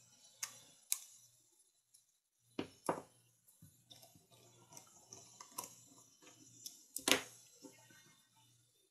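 Light clicks and clinks of a screwdriver, its bits and small screws being handled during knife assembly. Sharper clicks come about half a second and a second in and twice near three seconds, with the loudest at about seven seconds, among a patter of small ticks.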